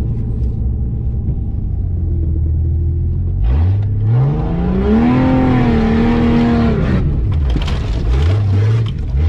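Off-road vehicle's engine idling low, then revving up hard about three and a half seconds in and holding high revs for about three seconds with a rushing hiss, before dropping back. A second, shorter rev comes near the end.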